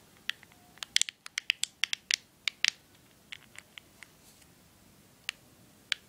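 Quick, irregular plastic clicks and taps from an Ematic MP3 player being handled in the hand, a dozen or so packed into the first three seconds and a few more spaced out later.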